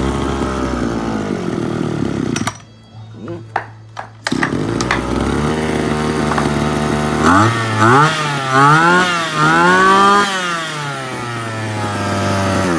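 Small two-stroke brush cutter engine (a TG24) running, dropping out for a moment about two and a half seconds in, then picking up again. In the second half it is revved up and down in several quick throttle blips before settling back to a steady idle.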